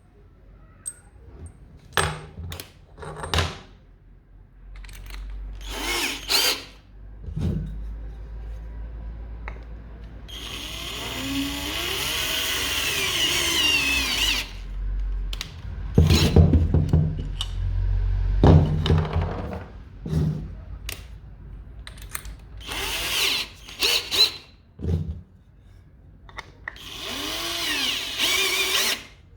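A handheld electric power tool is run in several bursts, its motor speeding up and then slowing down each time, with the longest run in the middle. Sharp knocks and clatter of wood and tool handling come between the runs, loudest a few seconds after the long run.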